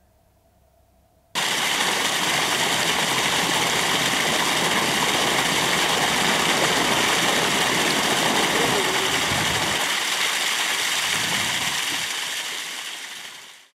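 Rushing water: a steady wash of noise that starts abruptly a little over a second in and fades out near the end.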